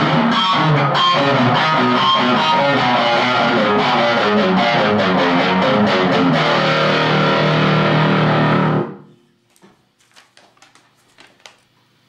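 Gibson Les Paul Studio electric guitar through a Marshall Jackhammer JH-1 distortion pedal and Marshall MG15CD amp, playing a distorted riff. The riff ends on a held low note that is cut off sharply about nine seconds in, followed by a few faint clicks.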